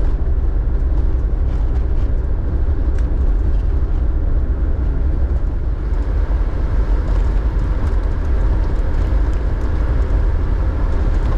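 Land Rover Defender driving along a gravel dirt track: a steady, heavy low rumble of engine and tyres on the loose surface, with faint scattered ticks of grit, heard from inside the cab.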